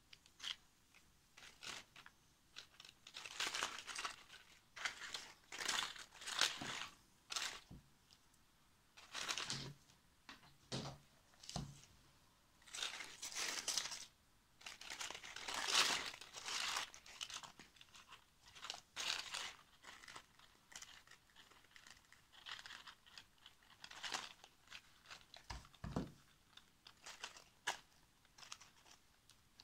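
Dry, papery rustling and crinkling in irregular bursts as hands handle dried Chinese lantern (physalis) husks and other dried craft materials on a newspaper-covered table, with a few soft knocks.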